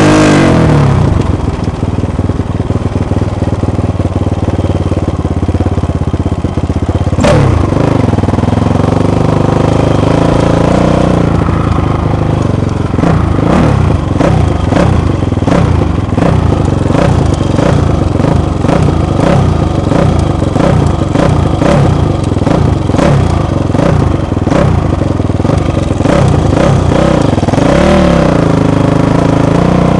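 Dirt bike engine revving and easing off again and again as the bike is ridden along a bumpy trail, its pitch falling and rising with the throttle and gears. From about twelve seconds in, many short knocks and rattles from the bike over the rough ground ride on top of the engine.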